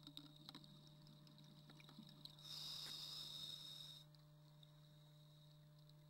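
Faint steady low hum with a few soft clicks, and about two and a half seconds in a hiss lasting about a second and a half: a scuba diver's regulator breath underwater.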